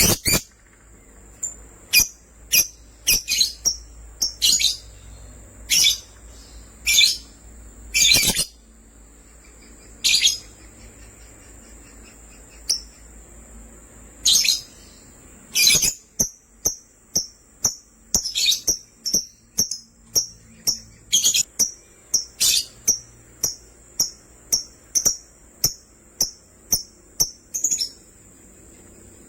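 Lovebirds (small agapornis parrots) giving short, sharp, high-pitched chirps. The chirps come irregularly at first, then in a quick, fairly even run of one or two a second through the second half.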